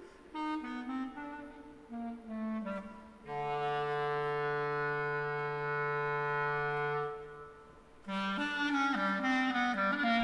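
Clarinet playing a solo phrase: a falling run of notes, then one long low note held for about four seconds and fading away, then a new phrase of quick notes near the end.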